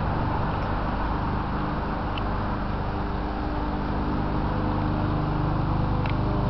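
Lawn mower engine running steadily at a constant pitch.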